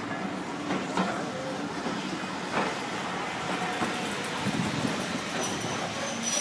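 Railway passenger coaches rolling slowly past on the track: a steady rolling noise with a few sharp wheel clicks over rail joints at irregular intervals.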